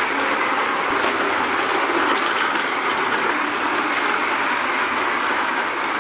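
Small toy trains running on a plastic toy track: a steady rattling whir of motors and wheels.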